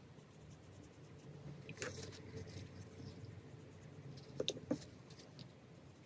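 Wet paintbrush stroking and scrubbing over watercolour-pencil swatches on paper, a faint soft scratching, with a few light clicks and taps, two of them close together about two-thirds of the way through.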